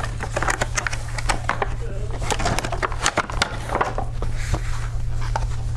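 Cardboard packaging and plastic toy parts being handled: irregular rustles, clicks and light knocks as foam torpedoes are pulled out of a cardboard insert, over a steady low hum.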